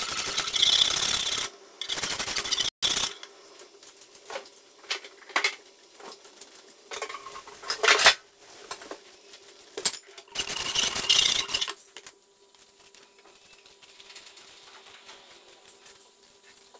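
Metal wire whisk stirring and scraping a peach, milk and cornstarch mixture in a saucepan as it heats to thicken. The whisking comes in two bouts, in the first three seconds and again about ten seconds in, with scattered ticks of the wires against the pan between them. It is quieter after about twelve seconds.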